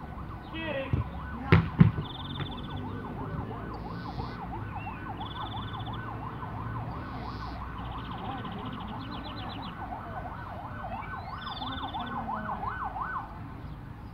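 An emergency-vehicle siren in a fast yelp, its pitch rising and falling a few times a second, cuts off about a second before the end. Two sharp knocks about a second and a half in are the loudest sounds.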